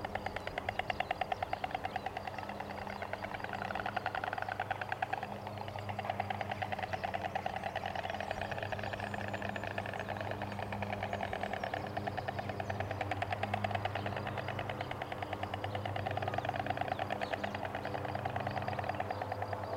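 White storks bill-clattering: a rapid, dry rattle in long runs that swell and fade, the clattering display of a pair with heads thrown back. A low steady hum runs underneath.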